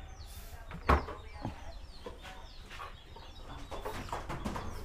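Chickens clucking in the background, with short high calls scattered throughout. A single sharp knock comes about a second in, over a steady low hum.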